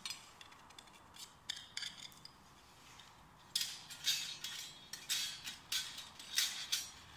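Thin metal plates and cross-bars of a flat-pack folding firebox stove being slotted together. A few light clicks come first, then from about halfway a quick run of louder scraping metal clinks.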